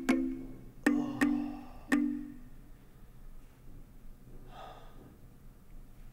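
A short musical sting of three ringing notes in the first two seconds, each struck sharply and fading away, then a man's short exhale about four and a half seconds in.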